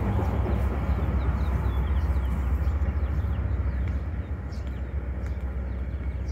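Steady low rumble of outdoor background noise, with a few faint high chirps in the first three seconds.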